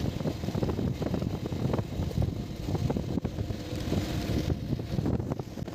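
Wind buffeting the microphone over the rumble of a moving vehicle, heard from on board as it travels along a road.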